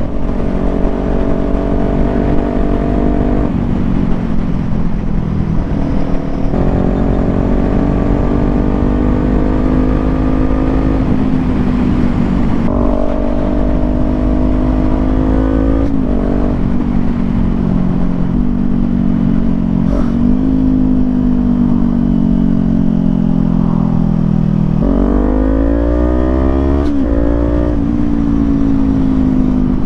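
Kawasaki Z400 parallel-twin with an aftermarket exhaust running under way, its note sliding and jumping in pitch with throttle and gear changes, and a sharp rev climb near the end. Steady wind rumble on the helmet mic underneath.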